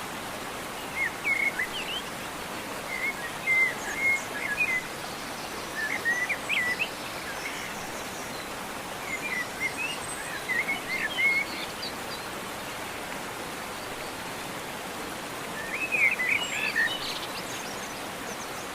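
Songbirds chirping in short bouts every few seconds over a steady hiss like rain or running water.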